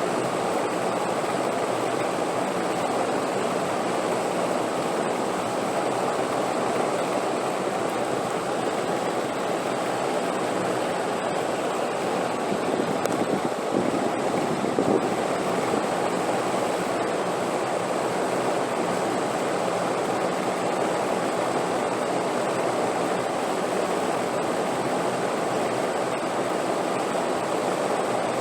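Steady rushing wind, an even unbroken noise that swells slightly about halfway through, with a faint thin high tone above it.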